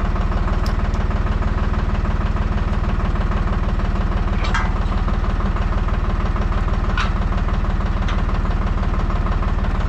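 Deutz-Fahr 55 F tractor's diesel engine running steadily at an even, unchanging speed, with a few faint clicks over it.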